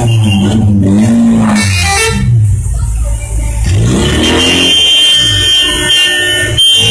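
Car horns sounding loudly, their pitch sliding up and down at first, then holding steady high tones from about halfway.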